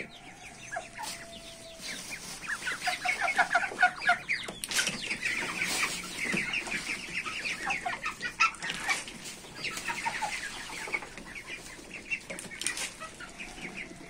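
Young chickens and ducks peeping and clucking while they crowd around a feed trough, the calls coming in quick runs of short high peeps, with a few sharp knocks.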